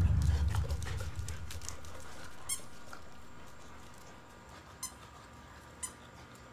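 A swoosh dying away over the first couple of seconds, then faint light clicks and three brief high squeaks from a squeaky dog toy gripped by boxers tugging on it, one midway and two more a second apart near the end.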